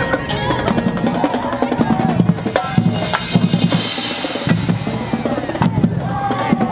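Marching band playing: the drumline's bass drums and snares beat steadily under held brass notes, with a cymbal wash about four seconds in.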